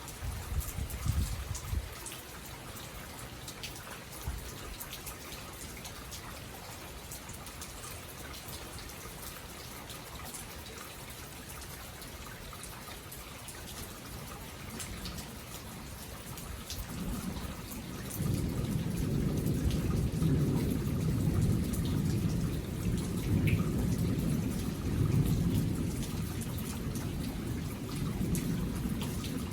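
Steady rain falling, with a long low rumble of thunder that starts just past the halfway point and swells.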